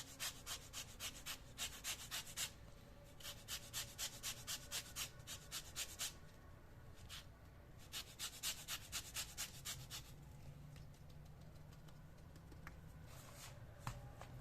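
Rhythmic scraping strokes from hand kitchen work, about five a second, in three runs separated by short pauses, followed by quieter handling sounds.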